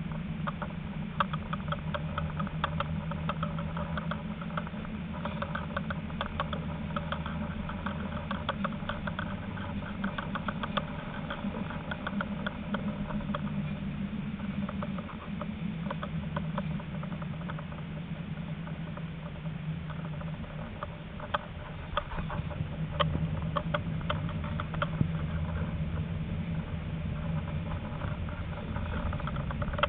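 Tram running along its track, heard from inside: a steady low hum under a dense, irregular patter of raindrops striking the front window.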